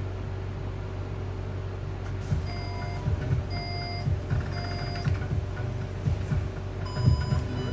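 Three short electronic beeps about a second apart, then one different-sounding beep near the end, over a steady low hum, with a few soft low thumps.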